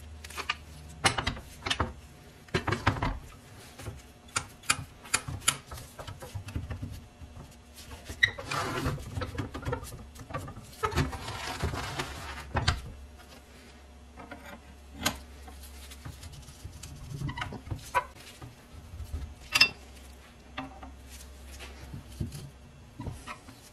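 Rusty metal brick carrier being handled and its lever jaws worked: scattered metal clanks and clicks, with two longer scraping stretches about a third and halfway in. Near the end, a wrench clicks onto one of its nuts.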